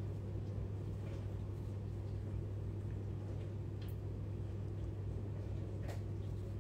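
Steady low hum with a few faint light taps a couple of seconds apart, from a small metal sieve being tapped to dust icing sugar over tarts.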